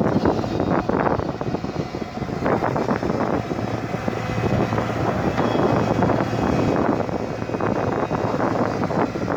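Excavator engine running steadily under work, with occasional short knocks and scrapes.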